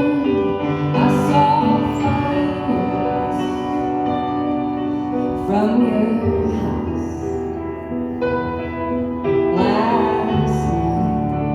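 A live song: singing over held instrumental chords, with sung phrases coming and going.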